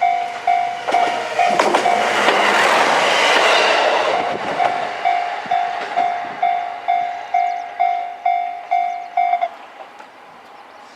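Japanese level-crossing warning bell ringing about twice a second while a single KiHa 122 diesel railcar passes over the crossing, its rush and wheel clicks loudest about two to four seconds in. The bell keeps ringing after the train has gone and stops suddenly about nine and a half seconds in.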